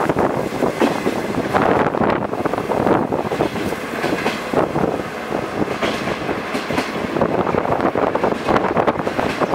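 Passenger train carriage running along the track, its wheels clattering over the rails in a steady stream of clicks and knocks, with the rush of the moving train.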